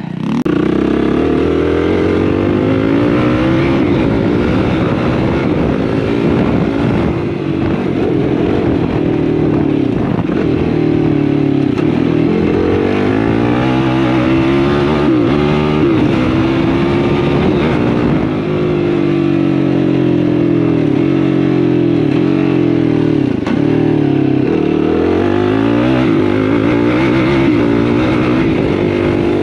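Yamaha YFZ450R quad's single-cylinder four-stroke engine being ridden hard. Its pitch climbs and drops again and again as the throttle is worked and gears change.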